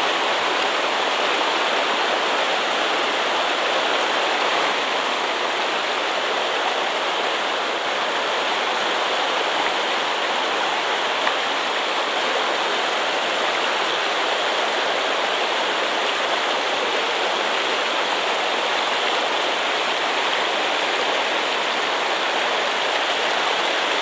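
Mountain stream rushing steadily over a rocky riffle close by, an even, unbroken rush of water.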